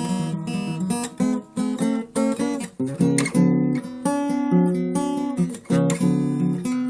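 Acoustic guitar playing a lively solo piece: plucked notes and chords with sharp attacks, broken by a few brief gaps.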